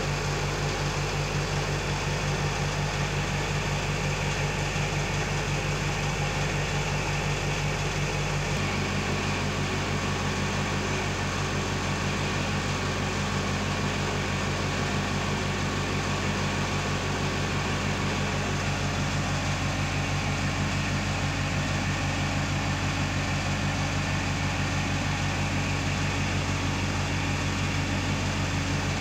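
Steady low drone of a running engine or motor, with an even fine pulsing. Its low tone shifts a little about eight and a half seconds in.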